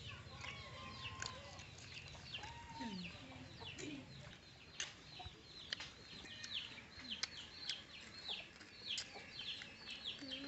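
Chickens clucking, with many short, high, falling peeps that come thicker toward the end, and a few sharp clicks.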